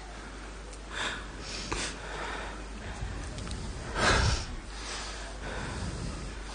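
A person sniffing and breathing heavily close to a microphone, several airy breaths, the loudest about four seconds in, over a steady low electrical hum.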